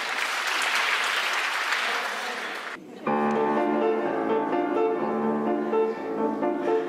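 Audience applause that stops about three seconds in, followed by a grand piano starting to play, its notes sustained and ringing.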